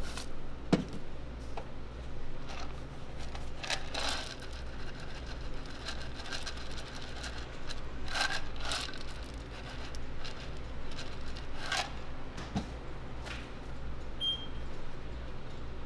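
Handheld topping shakers rattling in a few short bursts as crumbs and pieces are shaken out, with a sharp knock about a second in, over a steady low hum.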